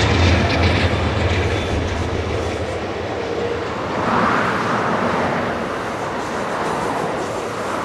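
Amtrak Superliner double-deck passenger cars rolling past, a steady rumble and clatter of wheels on rail. A low drone fades out in the first second, and the wheel noise swells about four seconds in.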